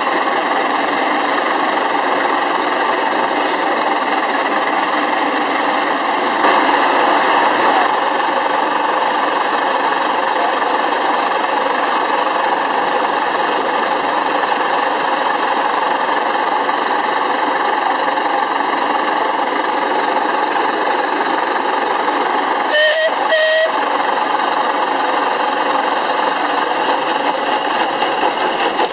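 Small steam engine, a steam-shovel swing engine driving a belt pulley, running steadily with a fast, even mechanical clatter. Two short high toots come about three-quarters of the way through.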